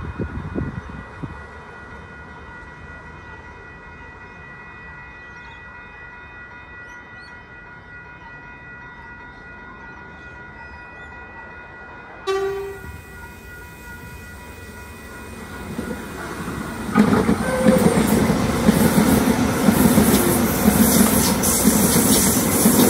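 An electric suburban train, an Oscar (H set) multiple unit, sounds a short horn blast about twelve seconds in. It then runs into the platform, and from about seventeen seconds the loud rush of wheels on rails and rolling stock takes over.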